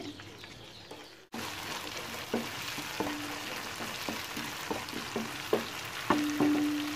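Curry paste sizzling in hot oil in a non-stick wok while a wooden spatula stirs it, with a run of short knocks of the spatula against the pan. The sizzle starts abruptly about a second in.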